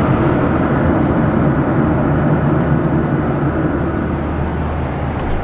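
Steady engine and air noise inside an airliner's passenger cabin in flight: a low hum under an even rushing noise.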